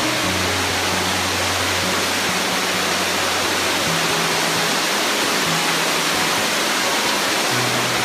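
Waterfall cascade rushing steadily, with low background-music notes changing every second or two underneath.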